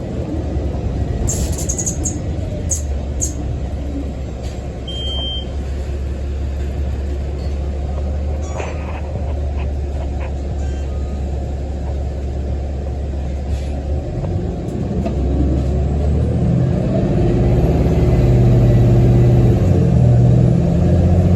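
City bus running with a steady low rumble, with a few sharp clicks or rattles about two seconds in. From about sixteen seconds in the engine note rises and gets louder, as when the bus pulls away.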